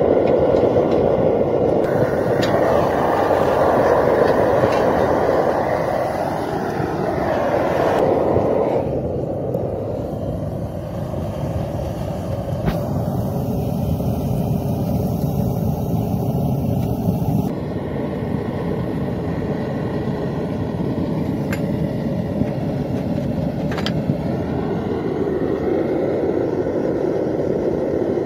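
Propane burner firing into a home-built furnace made from an old propane tank: a loud, steady rush with a faint hum that wavers and shifts in pitch. The texture changes abruptly a few times.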